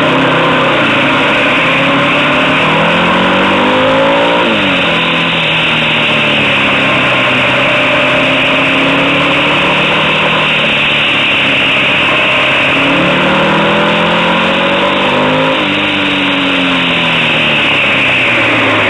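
Motorcycle engine heard from the riding position, pulling through the bends: its pitch climbs as the rider accelerates and then drops back, about four seconds in and again near the end. Under it runs a steady rushing noise of wind and road.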